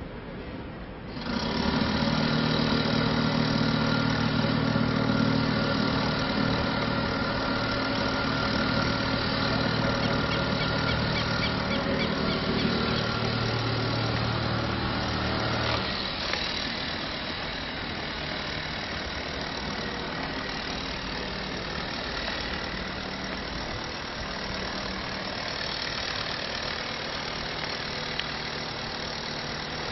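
An engine running steadily, coming in abruptly about a second in. Its steady hum cuts off about sixteen seconds in, leaving a lower, even rumble of noise.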